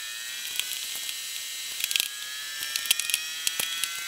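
Sticky boilie dough squelching and crackling in irregular clicks as gloved hands squeeze and knead it in a plastic mixing bowl. A faint high whine slowly rises in pitch underneath.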